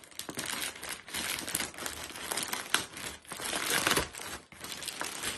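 Plastic postal mailing bag crinkling loudly, with rapid crackles, as it is torn open and the packaging inside is pulled out.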